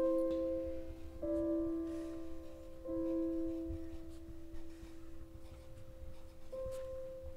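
Slow background music: soft, long-held notes or chords, each changing to the next after one to three seconds or so.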